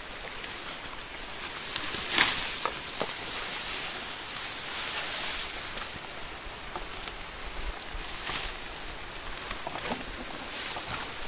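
Rice leaves rustling and swishing against a body moving through a dense field of young rice plants, in noisy swells over a steady high hiss. The loudest swish comes about two seconds in, with more near the middle and later.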